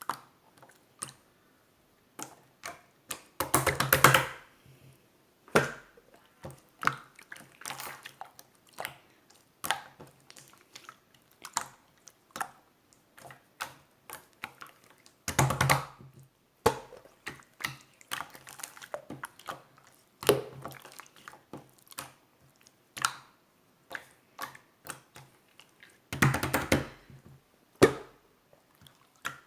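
Irregular close-up taps and clicks, broken three times by a longer, louder burst of dense crackling clicks lasting about a second.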